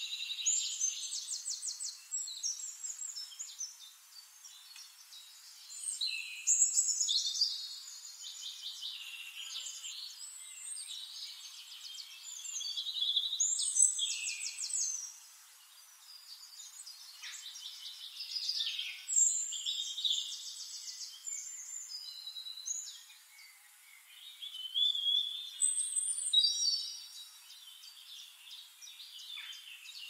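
Several songbirds singing over one another: high-pitched fast trills and chirps, swelling louder every few seconds.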